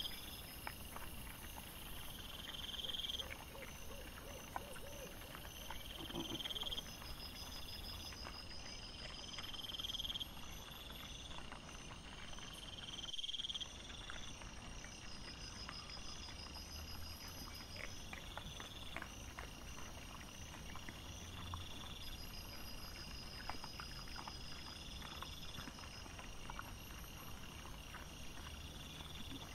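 Night insects chirping in high, regularly repeating bursts, with faint scattered clicks and rustles underneath.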